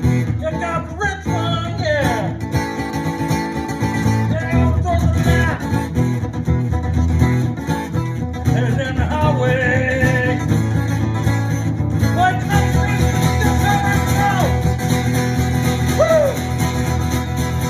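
Guitar music without lyrics: a steady picked and strummed accompaniment, with a lead line of bent notes above it.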